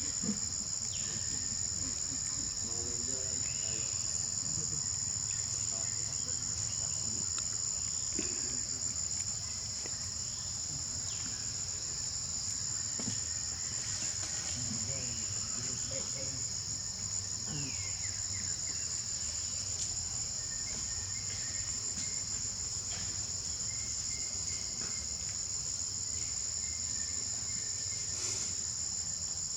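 Steady chorus of insects (crickets or cicadas), an unbroken high-pitched drone, with faint scattered short sounds beneath it.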